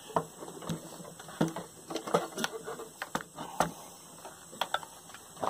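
Irregular clicks, taps and knocks from hand work: tools and metal parts being handled and set down while fitting a drill press extension.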